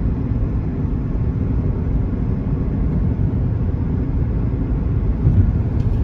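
Steady low rumble of a car driving along a highway, heard from inside the cabin: tyre, road and engine noise.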